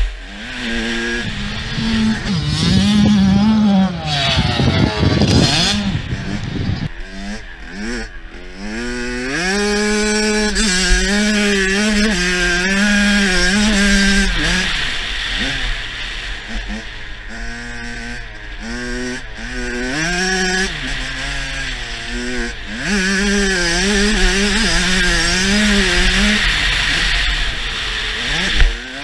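Kawasaki KX85 two-stroke dirt bike engine revving hard, its pitch repeatedly climbing and then dropping as it shifts gears and rolls off. Heavy wind rush on the microphone, strongest about four to six seconds in.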